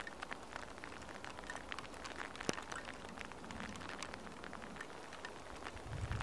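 Rain falling: a dense scatter of small, irregular ticks, with one sharper tick about two and a half seconds in.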